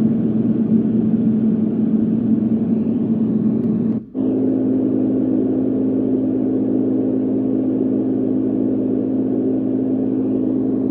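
Douni white noise sound machine playing a steady rushing noise with a low hum in it. About four seconds in it cuts out for an instant and switches to a different, similar noise sound with a slightly higher hum.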